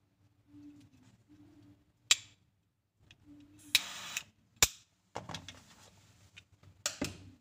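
Metal jet-torch lighter being handled: a few sharp clicks as its hinged lid snaps open and shut, one of them followed by a brief hiss, then lighter knocks as it is set down on a cardboard box.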